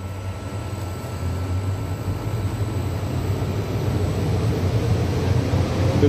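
AC electric motor on a variable frequency drive speeding up after start, a low hum and rush of machine noise growing steadily louder as the drive ramps toward 50 Hz.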